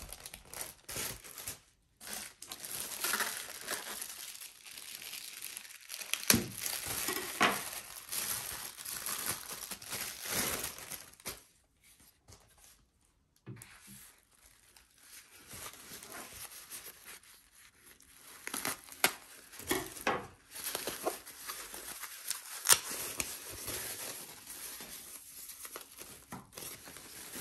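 Plastic wrapping crinkling and rustling as two speakers are unwrapped by hand, in two long stretches with a short lull in the middle. A few sharp knocks stand out, the loudest about six seconds in and again near the end.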